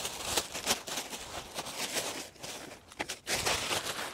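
A clear plastic bag crinkling and rustling in uneven bursts as it is pulled off a folded golf push cart.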